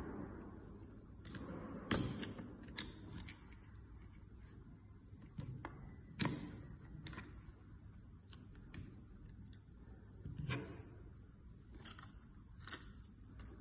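Scattered plastic clicks and knocks as the blade assembly of an AFMAT PSX6-9 electric pencil sharpener is handled and pulled apart, its top cap lifted off the blade holder; the loudest knock comes about two seconds in.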